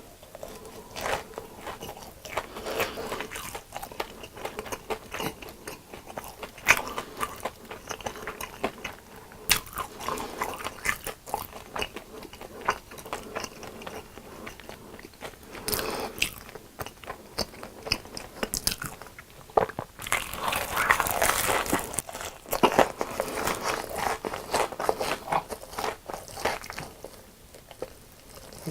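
Close-miked biting and chewing of crunchy fried food: repeated sharp crunches and crackles with wet chewing between them, densest about two-thirds of the way through.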